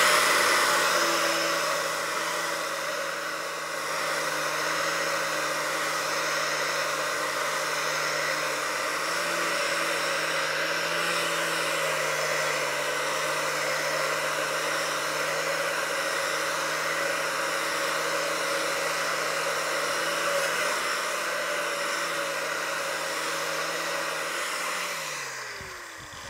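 Right angle grinder running at full speed with a Norton Rapid Strip Blaze non-woven ceramic disc pressed on a rusty, painted steel beam: a steady motor whine under the hiss of the disc scouring off rust and paint. Near the end the grinder is switched off and winds down with a falling pitch.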